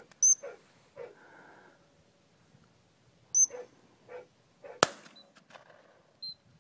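Two short, sharp blasts on a dog-training whistle about three seconds apart, the stop signal to a hunting English Springer Spaniel. A single sharp crack a little before five seconds in, with soft thuds of footsteps through dry grass around them.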